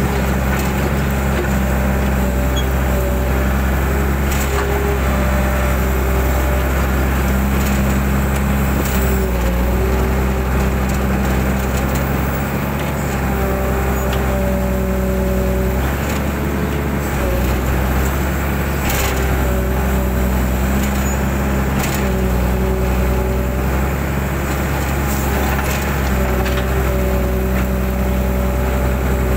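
Mitsubishi 120 excavator's diesel engine running steadily, with a higher whine that rises in and drops out every few seconds as it works, and a few sharp knocks.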